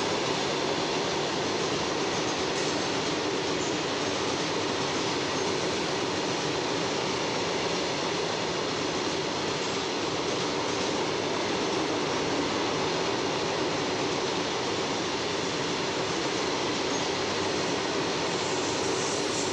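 Freight train wagons rolling steadily past: a continuous rumble and hiss of steel wheels on rail, with no let-up.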